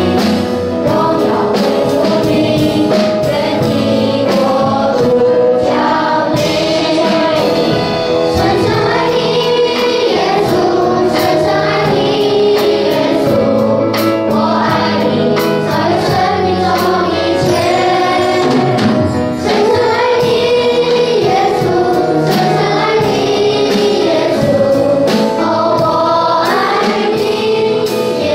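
A children's choir singing a worship song in unison into microphones, over instrumental accompaniment with a steady percussive beat.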